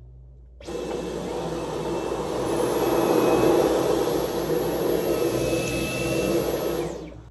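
Dyson V11 cordless stick vacuum switching on under a second in and running with its floor head on carpet for about six seconds, then cut off just before the end.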